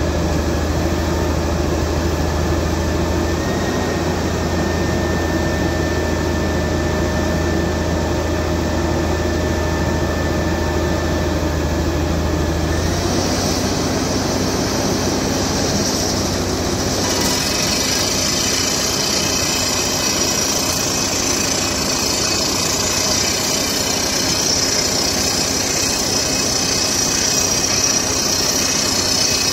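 Furukawa HCR1500ED-II crawler drill rig running steadily. About thirteen seconds in the sound changes, and a few seconds later a loud hiss joins it as drilling gets under way, with dust blowing out of the hole at the foot of the mast.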